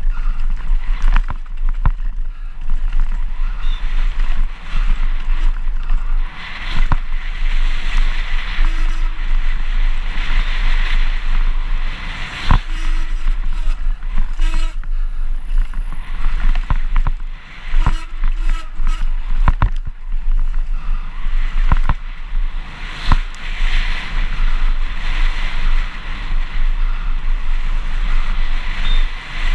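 Downhill mountain bike descending a dirt trail at speed, heard from a GoPro on the bike or rider: wind buffeting the microphone as a heavy rumble, a continuous hiss of tyres over dirt and loose rock, and many sharp knocks and clatters as the bike hits bumps.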